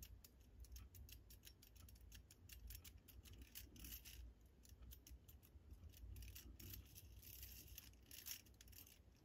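Faint, scattered small metallic clicks and light rattles of brass clock movement parts being handled, as wheels are rocked in their pivot holes to check for wear.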